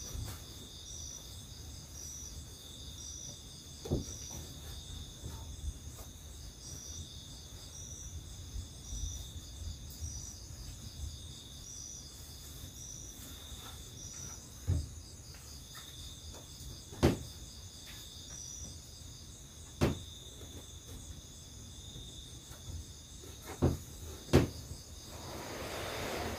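Night insects chirping steadily, with a high pulsing call repeating every half second or so over a higher steady drone. About six short wooden knocks and thumps stand out above it as belongings are moved about and set down on a plank floor.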